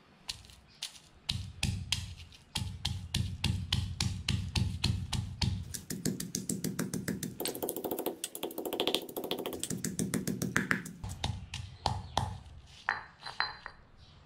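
Stone pestle pounding red chillies in a granite mortar: a long run of rhythmic thuds and knocks, a few at first, then steady, quickening in the middle and slowing again near the end.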